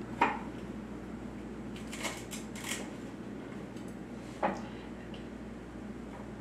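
Kitchen knife cutting through carrot stems and tips and striking a wooden cutting board: about four separate knocks, the loudest one just after the start, over a faint steady hum.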